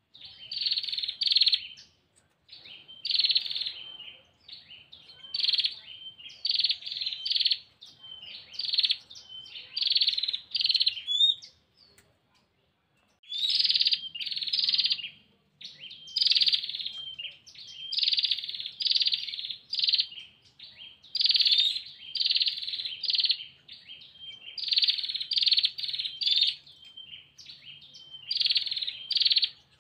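Female prenjak (prinia) giving its rapid, buzzy trilling call to attract a male. The call comes in repeated short bursts with short gaps and one longer pause about halfway through.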